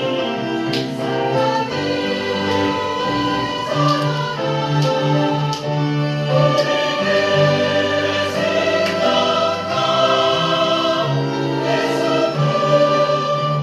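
Church choir singing a sacred anthem in several parts with instrumental accompaniment: held chords over a moving bass line.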